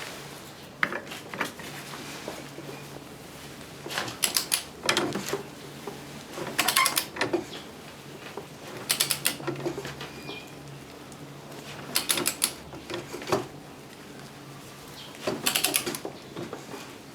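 Hand tools working on a scooter's belt drive: short bursts of sharp metallic clicking come every two to three seconds, over a faint steady hum.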